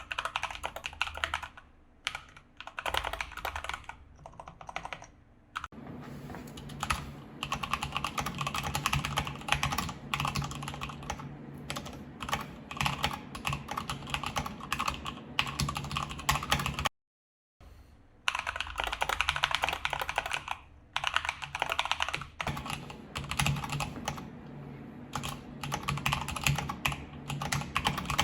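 Typing on a mechanical keyboard fitted with lubed Feker Holy Panda tactile switches: fast, continuous keystroke clacks. The sound cuts to dead silence for about half a second just past the middle, then the typing resumes.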